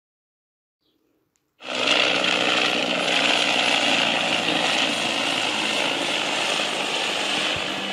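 The opening of a song on the soundtrack: silence, then about a second and a half in a sudden, steady wash of static-like noise starts, with faint held tones beneath it.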